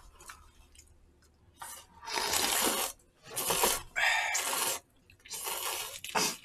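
Noodles being slurped from a bowl of jjamppong soup: four long slurps one after another, starting about a second and a half in.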